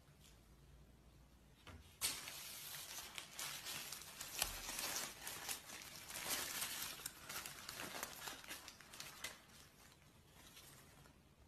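Paper burger wrapper being unwrapped by hand: faint crinkling and rustling that starts about two seconds in and dies away a couple of seconds before the end.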